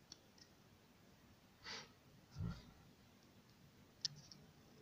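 Near silence broken by a person's breathing: a soft exhale a little under two seconds in, then a louder low breath puff on the microphone. A small sharp click follows near the end.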